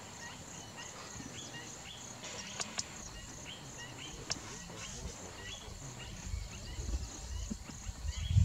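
An insect chirping steadily, a short high chirp two or three times a second, with low rumbling on the microphone that grows in the last few seconds.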